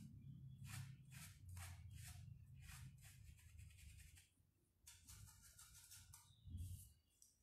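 Faint scratching of a paintbrush being worked in a small pot of PVA paint, a stroke about every half second, then a rougher rubbing near the end, over a low hum.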